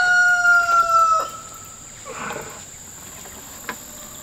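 A rooster crowing: the end of one long call held at a slightly falling pitch, which stops about a second in. A steady high insect drone runs underneath, and there is a small click near the end.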